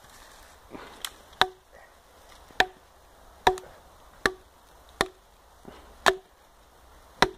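Small plastic-handled hatchet chopping a short piece of branch stood on a log, about eight sharp strikes roughly a second apart, each with a brief ring.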